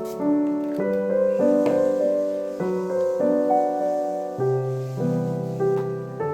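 Background music: gentle piano chords played at an unhurried pace, with no vocals.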